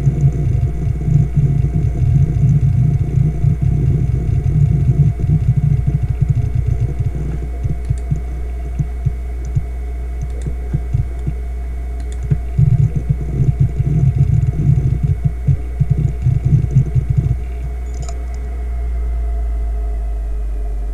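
Fujitsu G1 AV MEA3320BT hard drive working through an operating-system boot. Its heads seek in rapid, irregular chatter over the steady hum of its 3,600 RPM fluid-bearing spindle. The chatter comes in two long stretches with sparser clicks between, then drops away to the spindle hum alone for the last few seconds.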